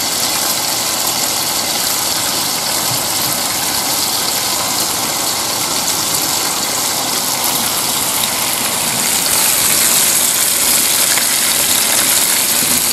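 Steady hiss of bacon sizzling in a frying pan on a portable gas stove, mixed with rain falling.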